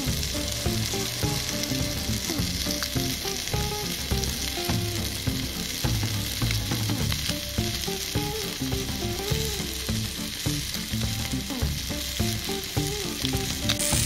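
Bacon-wrapped food frying in a cast-iron skillet over a camp gas burner: a steady sizzling hiss with small crackles.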